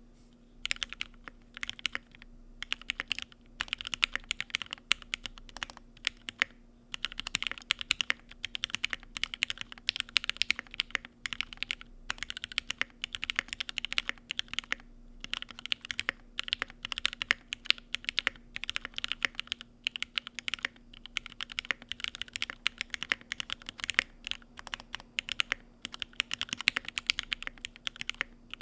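Typing on a Nix Day Off 60 custom 60% mechanical keyboard with Tealios V2 linear switches and GMK keycaps in an aluminum case: fast, continuous keystroke clacks broken by a few brief pauses.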